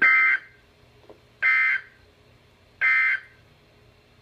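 Emergency Alert System end-of-message code: three short bursts of warbling digital data tones, each under half a second and about a second and a half apart, marking the end of the alert.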